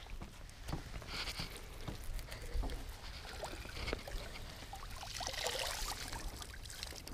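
Cast net being hauled in hand over hand by its rope, with small knocks and rubbing of the line. About five seconds in the net is lifted from the water and water pours and trickles off the mesh.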